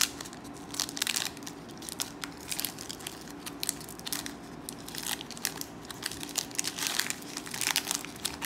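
Foil Pokémon Hidden Fates booster-pack wrapper crinkling and tearing in the hands as the pack is opened, in irregular bursts of crackle.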